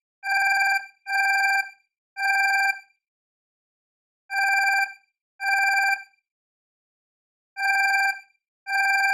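Alarm clock bell ringing in short bursts of about half a second, seven times, in uneven groups with gaps of a second or more between them.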